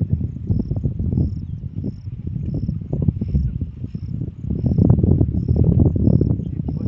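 A cricket chirping steadily, faint and high, about twice a second, over a loud, gusting low rumble.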